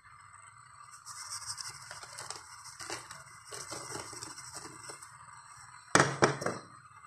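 Crushed Oreo cookie crumbs sliding out of a small ceramic bowl and pattering into a bowl of whipped cream, with a light scratchy rustle. Near the end come a few sharp clatters as the ceramic bowl is set down on the counter.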